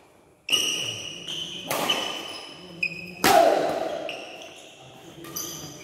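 Badminton rackets hitting a shuttlecock in a rally, about half a dozen sharp strikes echoing in a large hall. The first comes about half a second in, and the loudest a little past three seconds in.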